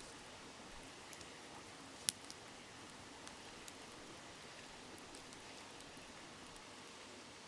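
Wood campfire crackling, with a few sharp pops, the loudest about two seconds in, over the steady murmur of a river.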